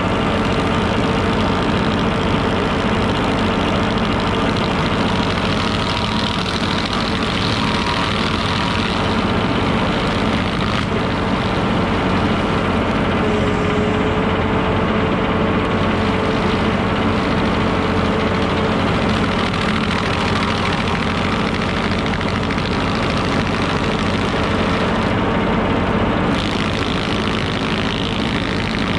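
Tractor engine running steadily, driving a Mech Maxx TSG61 stump grinder through the PTO shaft while its cutter wheel grinds into a stump.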